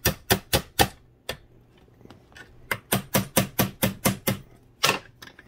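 A hammer tapping quickly on an aluminium link rod clamped in a bench vise, bending it cold under hand pressure. The taps come in two quick runs of about five or six a second, with a pause between them and one last tap near the end.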